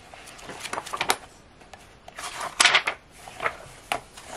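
Paper planner pages rustling and swishing as a thick stack of inserts is turned and pressed flat in a ring binder, with a louder swish of pages about two and a half seconds in.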